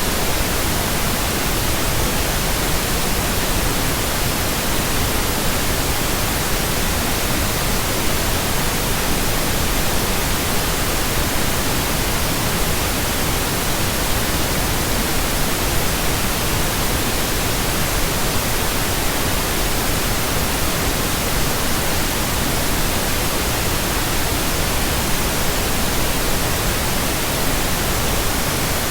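Electronically generated pink noise: a steady, even hiss spread across the whole range, with no change throughout.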